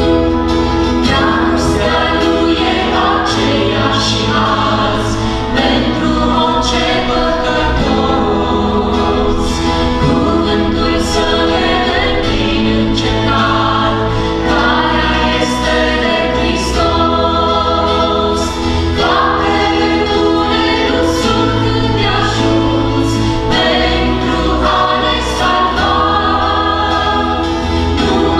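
A worship group of several voices singing a gospel song together, accompanied by acoustic guitar, electric bass and keyboard, with a steady beat.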